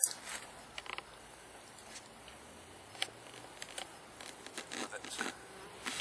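Wild honey bees buzzing around the entrance of their nest in the ground, with scattered short clicks and rustles; the loudest click comes right at the start.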